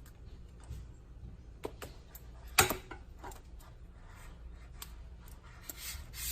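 Metal folding bike lock being handled: scattered light clicks and rattles of its links, with one sharp, louder click a little over two seconds in and a short rustle near the end.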